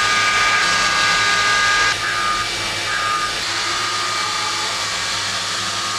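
Carbide end mill in a CNC mill cutting 15-5 stainless steel on a finishing pass: a steady high whine over a hiss, dipping slightly and shifting pitch about two seconds in.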